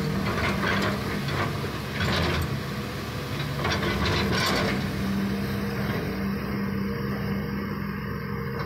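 Hitachi hydraulic excavator's diesel engine running with a steady hum while the machine works in a flowing river, with a few short louder rushes of noise in the first half over the steady wash of the water.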